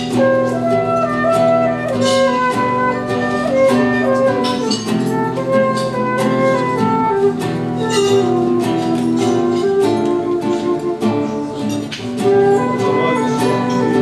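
Live duet of a classical acoustic guitar strumming chords and a transverse flute playing the melody above it.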